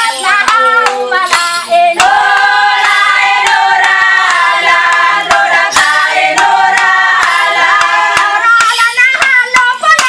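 Women's voices singing a traditional welcome-dance chant together, over a steady beat of sharp clacks, about two to three a second.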